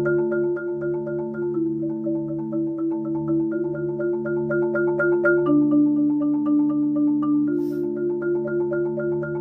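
Marimba played with yarn mallets in rolls: rapid, even repeated strikes that sustain chords of several notes, the chord changing a few times.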